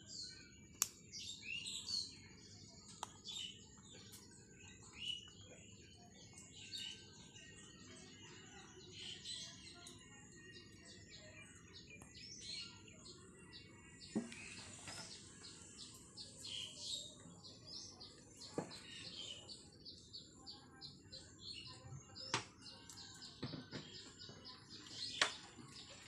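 Birds chirping and twittering, short high calls repeating throughout, with a few sharp clicks; the loudest clicks come about a second in and near the end.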